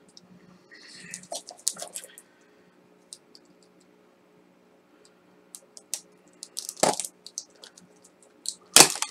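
Packaging being worked open by hand: scattered clicks, taps and crinkles of plastic and cardboard, coming in short clusters with pauses between, the loudest near the end.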